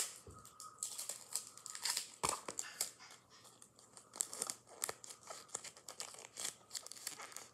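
A homemade pop-it made of paper covered in wide tape crinkling and crackling as it is handled, in irregular crackles.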